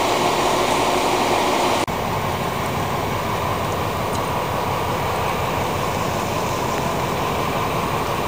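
Steady rain falling, an even hiss with no distinct events, which changes abruptly in tone about two seconds in.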